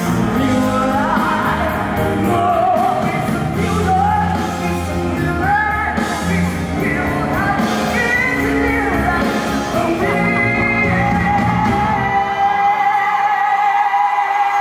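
Live concert song: a male singer singing into a microphone over a loud band backing, with yells from the crowd. About ten seconds in a long note is held, and the low backing drops away shortly before the end.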